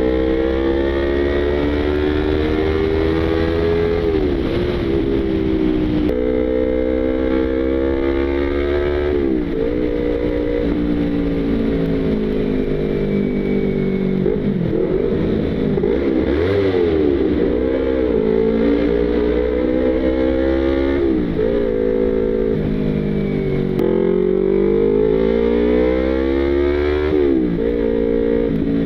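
Yamaha YZF-R25/R3 parallel-twin engine and exhaust under acceleration while riding. The pitch climbs through the revs, then drops sharply at each gear change, several times over, with some quick rises and falls in between.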